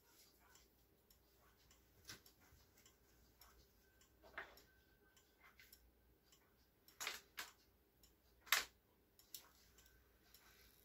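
Antique German Kienzle clock movement running: the escapement ticks faintly and steadily as the pendulum swings. A few louder sharp clicks come through, about two, four and a half, seven and eight and a half seconds in, the last the loudest.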